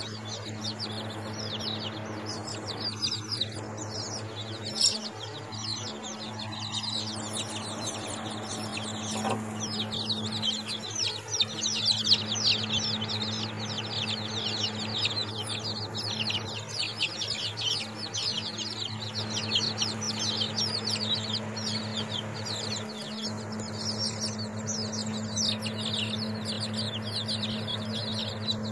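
A flock of week-old chicks peeping nonstop: many rapid, high, falling cheeps overlapping, busiest through the middle. A steady low hum runs underneath.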